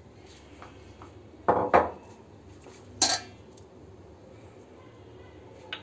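Glass dishes and a stainless steel mixing bowl knocking together: two loud knocks about a second and a half in, then a ringing clink about three seconds in.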